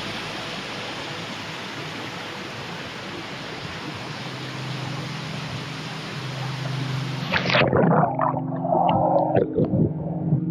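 Steady rush of a waterfall and flowing water, then about seven and a half seconds in the sound turns suddenly muffled as the microphone goes under the water, leaving loud underwater gurgling and rumbling.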